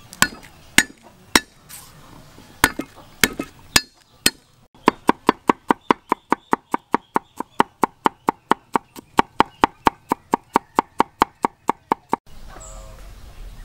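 Steel cleaver striking a wooden chopping board while mincing garlic: a few separate knocks, then steady rapid chopping at about five strokes a second that stops abruptly near the end.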